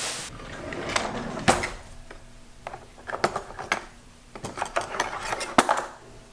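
Clicks and light knocks of objects being handled and shifted about inside a kitchen drawer, in a series of separate clatters with a cluster near the end. A faint steady hum runs underneath.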